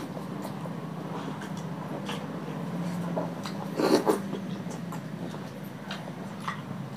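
People eating rice and curry by hand: scattered chewing and lip-smacking clicks over a steady low hum, with a louder brief double smack about four seconds in.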